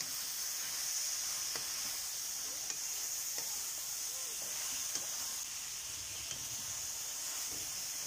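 Sliced sponge gourd sautéing in a pan, sizzling steadily as a wooden spatula stirs it, with a few light taps of the spatula on the pan.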